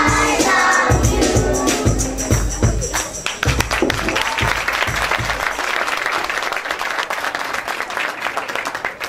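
A children's choir sings over a backing track with a steady beat until the song ends about three seconds in. An audience then applauds.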